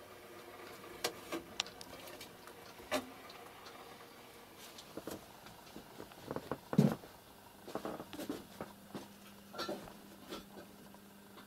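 Scattered soft knocks, clicks and rustles of a handheld camera being moved about, at an irregular pace, with one heavier thump about seven seconds in. A faint low hum comes in near the end.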